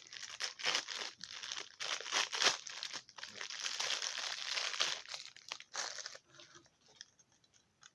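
Packaging crinkling and rustling as it is handled, dense for about six seconds and then thinning to a few scattered crackles.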